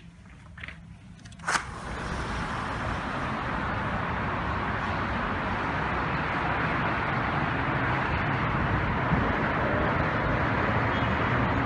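A sharp click about a second and a half in, then a steady rush of heavy highway traffic far below, with wind, taking over at a much higher level once the view is opened to the outside.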